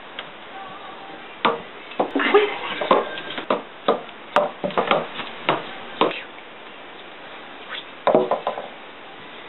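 A small ball knocking on wooden stair treads while a cat bats at it and its paws land on the wood. The taps are sharp and irregular, running for several seconds, then another quick run comes near the end.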